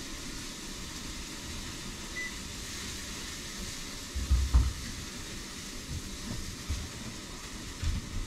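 Steady indoor background hum, with a brief faint beep about two seconds in and a few dull low thumps, the loudest about halfway through.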